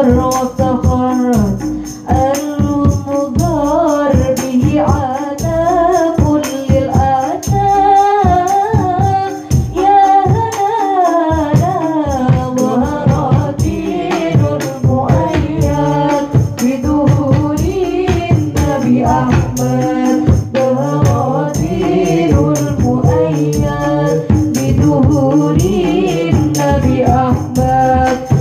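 A woman singing sholawat in a wavering, ornamented melody, backed by a rebana ensemble: terbang frame drums and kendang hand drums beat a steady rhythm under jingling kecer cymbals.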